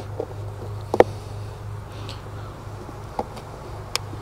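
Carniolan honey bees buzzing in a steady low hum around an opened bee package, while the tin feeder can is worked loose from the package's wooden top, giving a few sharp knocks and clicks, the loudest about a second in.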